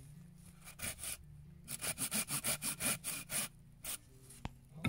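Hand saw cutting into a seasoned sycamore blank: a couple of strokes about a second in, then a quick, even run of about ten short rasping strokes, some five a second, through the middle.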